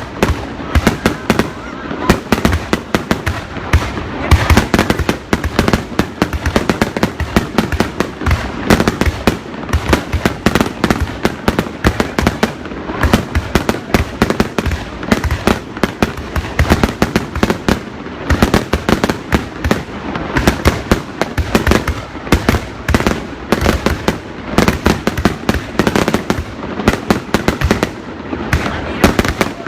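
Fireworks going off: a dense, unbroken run of sharp bangs and cracks, several a second, all the way through.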